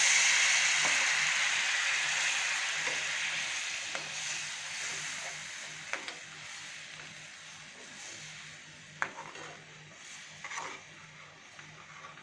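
Hot fried masala in a steel pan sizzling after water has been added, the sizzle loud at first and dying away over several seconds as it is stirred. A metal spatula clicks and scrapes against the pan several times, most sharply around the middle and near the end.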